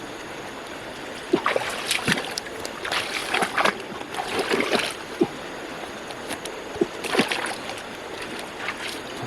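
Water splashing and sloshing in irregular bursts, with a few short pitched plops, over a steady watery hiss.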